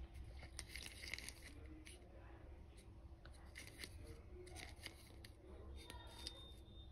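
Near silence with faint, scattered rustles and light clicks of handling as a hand grips and turns a small plastic pill bottle, over low room tone.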